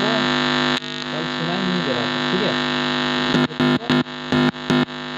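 Steady electrical hum with many overtones from the 4440 car amplifier on test through its speaker, with a faint wavering sound over it. From about three seconds in, it cuts out and back in several times with short crackling breaks.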